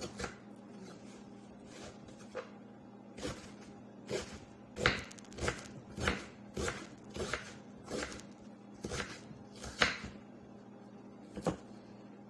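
Kitchen knife slicing an onion on a wooden cutting board: a series of sharp knocks, spaced out at first, then about two a second through the middle, with a last one near the end.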